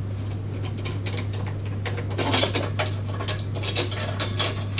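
A metal wing nut being turned by hand onto the bolt of a lawn mower's folding-handle joint, giving irregular light metallic clicks and scrapes, busiest a little past two seconds in. A steady low hum runs underneath.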